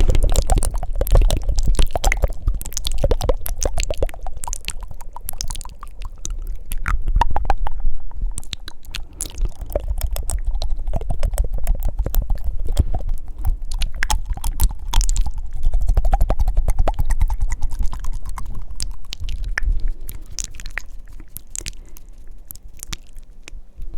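Close-miked ASMR mouth sounds: rapid wet tongue flutters and clicks, packed densely together, over low breathy puffs.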